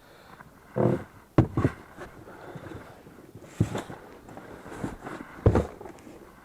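Irregular knocks and thumps of gear being handled in a small boat, with rustling in between; the two sharpest knocks come about a second and a half in and near the end.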